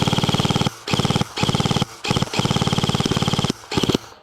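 Airsoft electric rifle firing on full auto in several short bursts, each a fast, even buzz of shots at about twenty a second, with brief pauses between bursts.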